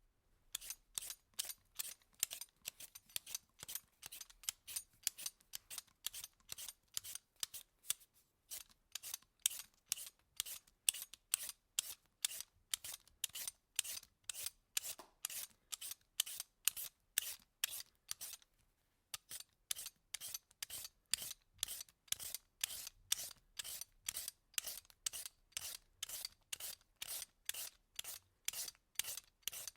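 Peeler scraping the skin off food in quick repeated strokes, about two a second, with one short pause a little under two-thirds of the way through.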